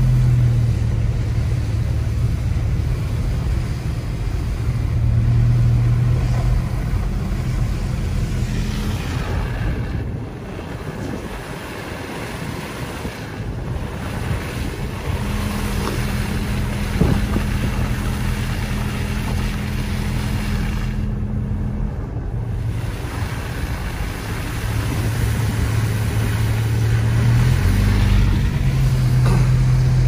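Car driving on a wet, slushy road, heard from inside the cabin: a steady low engine hum under the hiss of tyres on slush. The noise dips briefly about ten seconds in.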